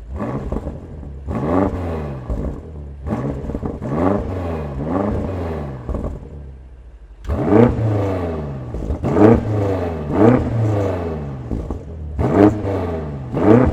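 BMW F90 M5's twin-turbo V8 revved in a series of quick throttle blips through a Scorpion half-system exhaust, each rev rising sharply and then falling back. The blips are softer at first and louder from about seven seconds in.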